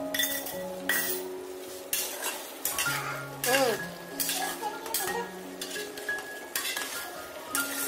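Metal slotted spatula scraping and stirring chicken and vegetables around a wok, with repeated strokes roughly once a second over a light sizzle, as the cornflour slurry is stirred in to thicken the sauce. Soft background music with held notes plays underneath.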